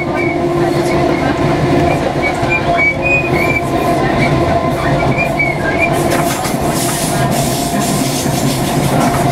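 Interior of a Class 318 electric multiple unit running along the line: a steady rumble with a faint motor hum, and a high, wavering wheel squeal for the first six seconds or so. After that the squeal fades and rattling and hiss grow louder.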